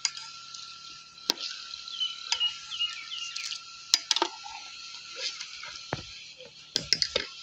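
A steel ladle stirring a metal cooking pot of potato biryani, clinking and knocking against the pot's side: once about a second in, a few times around four seconds, and in a quick cluster near the end.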